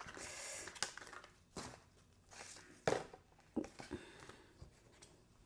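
Plastic blister packaging and its contents being handled: a crinkling rustle in the first second, then a few sharp clicks and taps, fainter toward the end.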